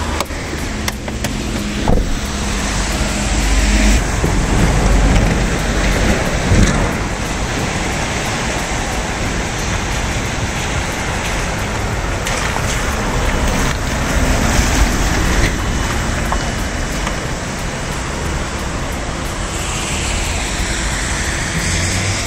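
Steady road traffic noise, with a vehicle passing near the end.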